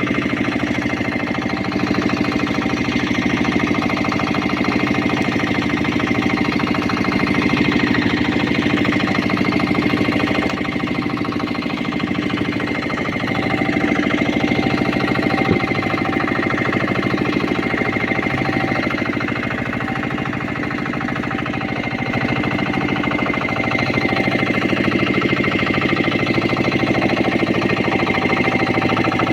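Small fishing boat's engine running steadily with a rapid knocking beat.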